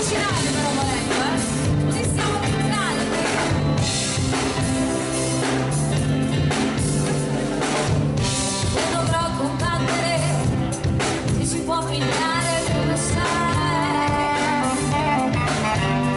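Live band playing a song: a singing voice over drums and accompanying instruments, at a steady level.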